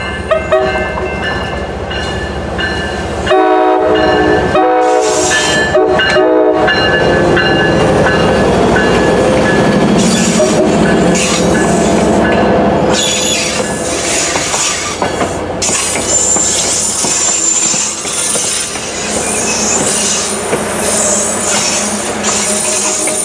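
A passenger train's diesel locomotive approaches and sounds its horn in several blasts about three seconds in. Its coaches then roll past close by with wheel squeal and clatter over the rail joints. A grade-crossing bell rings throughout.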